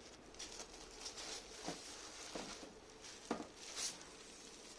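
Faint handling sounds of unboxing: short bursts of packaging rustling, with three light knocks as parts are handled and set down.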